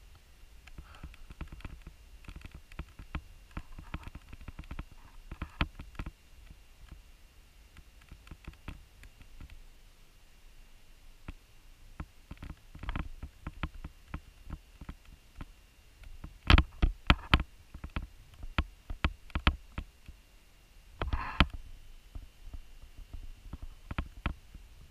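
Handling noise: irregular small clicks and knocks over a low rumble as the camera and the drone's remote controller are moved about. A loud run of knocks comes about two-thirds of the way through, and another a few seconds later.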